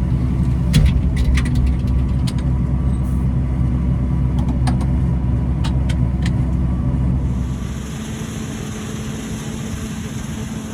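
A vehicle engine running steadily with a low hum, with a few light clicks over it. About seven seconds in the low rumble drops away, leaving a steady hiss.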